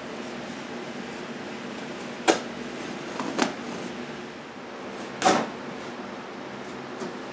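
Cardboard masking sheets being handled and fastened around a harp: three sharp snaps about two, three and a half, and five seconds in, the last followed by a short rasp.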